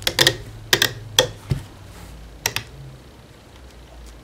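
Several sharp, irregular plastic clicks and taps as rubber loom bands are pulled off the pegs of a plastic bracelet loom.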